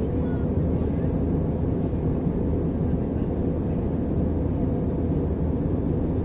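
Steady in-flight cabin noise of an Airbus A319 airliner: a deep, even hum and rush of engines and airflow with no change in pitch or level.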